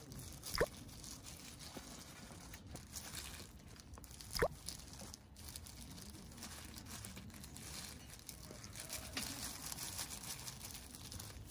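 Faint crinkling and rustling as plastic food packaging is handled, with two short sharp clicks about four seconds apart.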